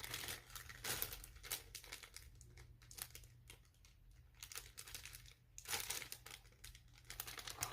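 Packaging being handled and opened: faint, irregular crinkling and rustling of the wrapping, with small clicks, louder about a second in and again around six seconds in.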